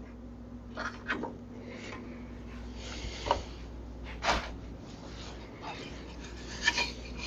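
A few light knocks and clicks, spaced out, of wood and tools being handled on a miter saw's table, over a low steady hum.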